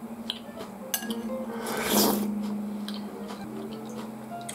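Slurping ramen broth from a spoon, one loud slurp about two seconds in, after a couple of light clinks of the spoon against the ceramic bowl. Soft background music runs underneath.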